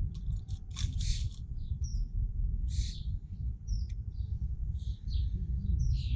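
Small birds chirping in short, high calls scattered through, over a steady low rumble. A few light clicks about a second in come from spokes being handled in the rim.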